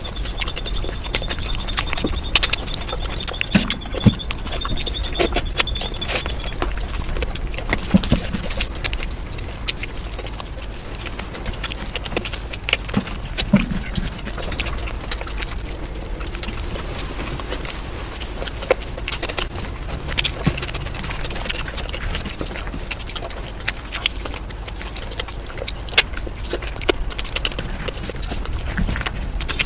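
Eating sounds: chewing and mouth noises with many scattered sharp clicks and taps throughout, as of utensils, hands and food. A faint high steady whine stops about six seconds in.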